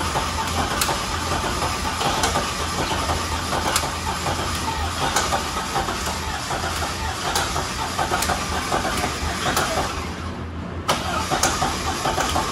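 Starter cranking over a V8 engine with a valve cover off, breaking off for a moment near the end and then cranking again.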